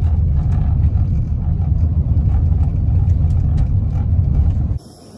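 Loud, steady low rumble of a car in motion heard from inside the cabin, driving on an unpaved dirt road: road and engine noise with faint scattered ticks. It cuts off suddenly near the end.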